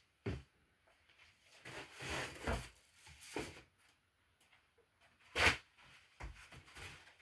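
Small objects being handled on a work surface: a knock near the start, a stretch of rubbing and rustling, and a sharper knock about five and a half seconds in.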